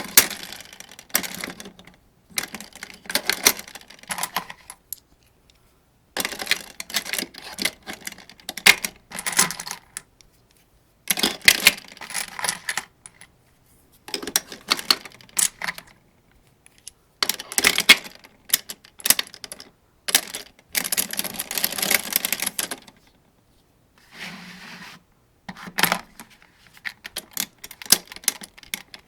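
Metallic clicking and rattling of 7.62×39 mm cartridges being pressed one at a time into an AK-47 75-round drum magazine. The clicks come in short clusters with silent pauses between them.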